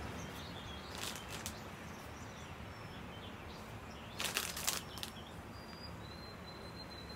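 Quiet outdoor background hiss with a few short bursts of rustling as a kit package is handled, the loudest a little past the middle. Faint high bird chirps come in near the end.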